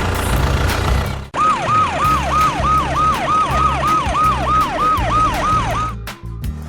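Siren in a rapid yelp: a tone sweeping down over and over, about three times a second, starting just over a second in and cutting off near the end. Background music with a steady beat runs underneath.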